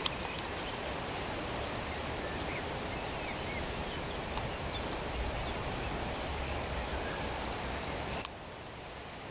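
Outdoor ambience: a steady background rush with a few faint bird chirps and scattered clicks; the level drops suddenly near the end.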